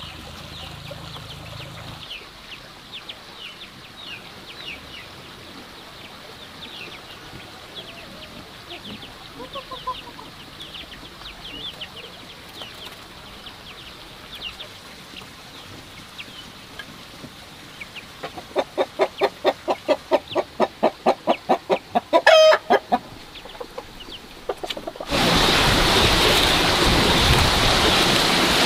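Hens clucking softly in the nest box. About two-thirds of the way in, a hen breaks into a quick run of loud clucks, three or four a second, ending in one loud squawk of a cackle. Near the end a loud steady rush of noise comes in as straw is pushed against the microphone.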